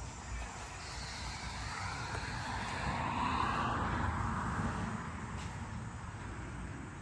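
A motor vehicle passing by: a rushing noise that swells to its loudest about halfway through and then fades, over a steady low rumble.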